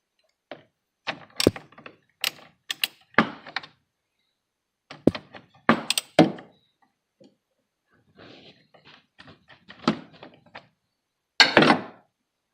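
A hand wrench on a car battery's positive terminal bolt: irregular metal knocks, clicks and clunks as the terminal is loosened and the cable is pulled off.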